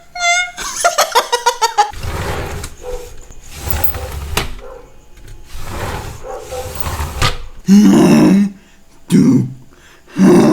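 A man making mimicked sounds with his mouth and voice. It opens with short whistled chirps that break into a quick trill, then comes a stretch of breathy, rasping noise, and near the end three loud, short, low vocal bursts, like exaggerated burps.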